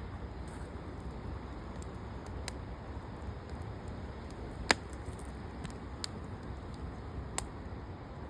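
Firewood burning in a barbecue grill, with a few sharp crackles and pops, the loudest about halfway through, over a steady low rushing noise.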